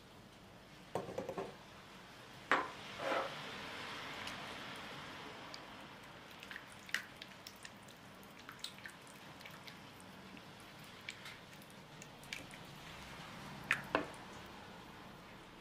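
Yogurt poured into melted butter and oil in a bamboo bowl and stirred with a silicone spatula: wet squelching stirring, with a few sharp knocks near the start and two more near the end.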